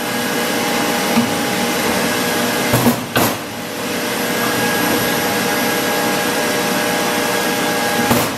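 Steady loud drone of running machinery with a few constant whining tones. Over it come a few short knocks, about a second in and twice around three seconds in, as the rebuilt pump and motor are worked into the frame under the tank.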